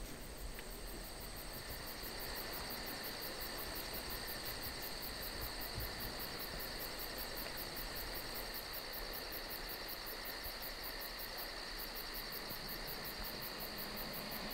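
Crickets and other insects chirping steadily: a constant high trill, with a faster, evenly pulsing chirp above it at about four to five pulses a second.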